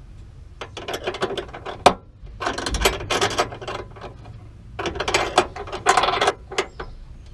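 Hand ratchet wrench clicking in three bursts of quick strokes, tightening a nut onto a bolt until it is snug.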